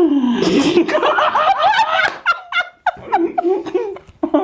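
People laughing and giggling in bursts, with a short lull before a rhythmic laugh starts up again near the end.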